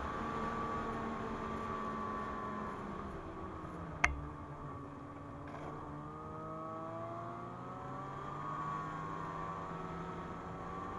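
Snowmobile's two-stroke twin engine running steadily, with a sharp click about four seconds in. After the click the engine speed drops, then slowly climbs again.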